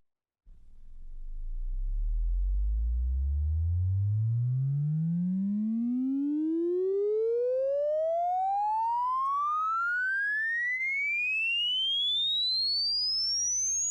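Electronic sine-like tone sweeping steadily upward in pitch, from a deep hum to a high whistle over about thirteen seconds, starting about half a second in.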